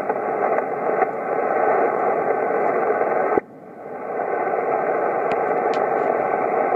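Static hiss from a Codan 9323 HF single-sideband transceiver's speaker, with no voice being received on the frequency. About halfway through a sharp click cuts the hiss right down, and it then swells back up over about a second.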